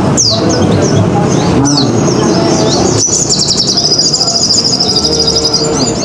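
Olive-backed sunbird (sogon) singing: quick high chirps, then from about three seconds in a fast, unbroken high trill, over a steady low background noise.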